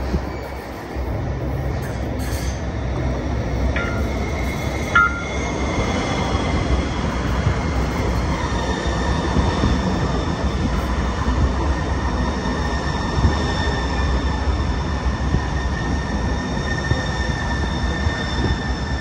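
Sound Transit Link light rail train passing close by, a steady rumble of wheels on rail with a high, sustained wheel squeal. Two brief high tones sound about four and five seconds in.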